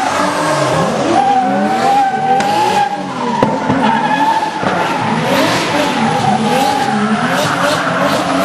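Drift car engine revving up and down again and again while its tyres squeal in a long, steady screech as the car slides.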